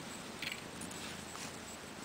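Faint steady background hiss with a brief soft rustle about half a second in and a few tiny clicks.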